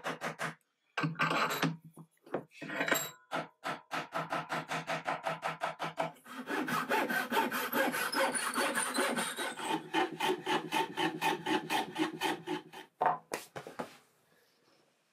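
Fine-toothed hand backsaw cutting through a small wooden block in quick, even back-and-forth strokes, several a second. There are two brief pauses near the start, and the sawing stops about a second before the end.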